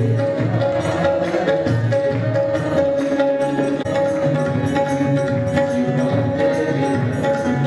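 Devotional aarti music: a tabla-style rhythm played with drumsticks on a Roland electronic percussion pad, over a steady held note.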